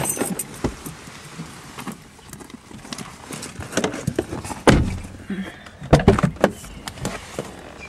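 Irregular knocks and scuffs of someone moving about with a handheld camera: footsteps and handling noise. The loudest knocks come a little past halfway and again about a second later.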